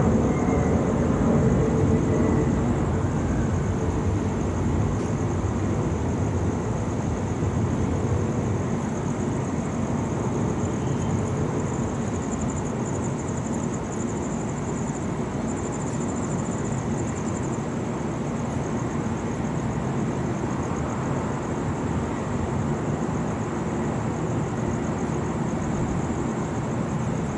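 Steady low rumble of distant city traffic, with a continuous high, fine-pulsing buzz of insects above it that swells for a few seconds midway.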